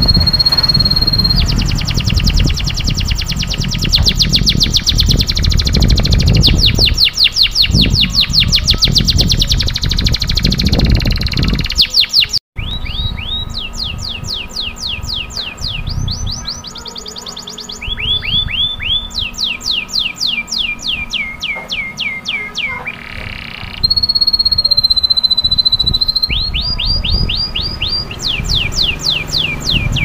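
Domestic canary singing a long song of rapid trilled rolls at changing speeds, with held whistle notes near the start and again about two-thirds of the way through. The song cuts out for an instant about twelve seconds in, and a low rumble runs beneath the first part.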